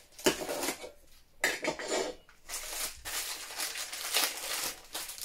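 Clinks and scrapes from an opened metal Funko Soda can as the bagged figure is tipped out. From about halfway, the figure's plastic bag rustles and crinkles.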